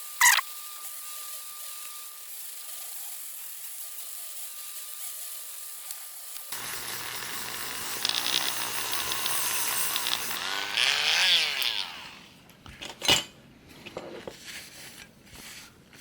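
Small electric rotary tool running at high speed, polishing a clear plastic part, with a steady thin whine. Around eleven seconds in its pitch sweeps and the running stops. A few clicks and knocks follow, the loudest near the end.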